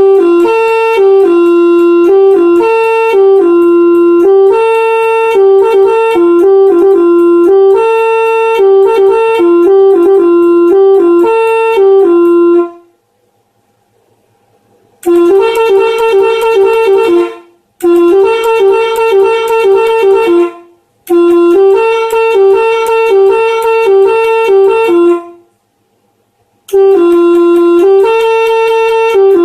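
Telolet air horns, switched by an electronic multi-tone module, playing a jingle of stepped notes that hop among two or three pitches. One long phrase of about twelve seconds, then after a short pause four shorter phrases with brief gaps between them.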